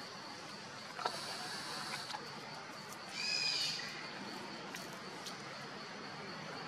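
A baby monkey gives one short, high-pitched squeal a little past three seconds in, over a steady high insect drone, with a faint click about a second in.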